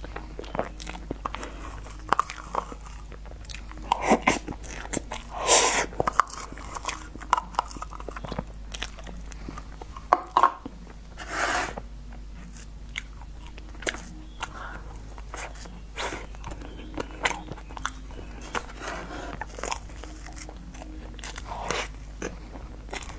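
A person eating soft cream cake from a spoon, heard up close: wet mouth and chewing sounds with many small clicks, and a few louder slurping mouthfuls.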